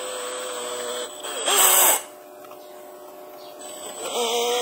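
Cordless drill running at slow speed with a steady whine, turning a 5 mm motor shaft into an M5 threading die to cut threads. The whine grows louder and rises in pitch about a second and a half in, drops away at about two seconds, and starts again near the end.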